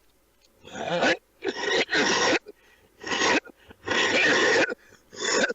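A man coughing in a fit: about six loud, harsh coughs in quick succession, a couple of them drawn out, starting about half a second in.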